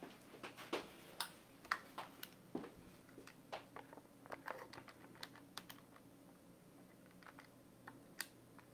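Faint, irregular tapping of fingers on a smartphone touchscreen while entering a calculation: several small clicks a second, thinning out to one or two after about six seconds.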